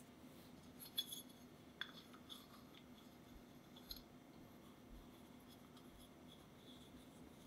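A few light clicks and taps from a small fluted tart mold and the dough being handled in the first four seconds, then faint soft sounds of pie dough being pressed into the mold.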